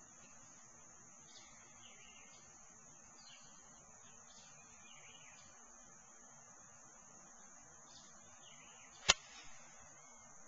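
Golf iron striking a ball off fairway grass: one sharp crack about nine seconds in. Underneath, a steady high insect drone and faint scattered chirps.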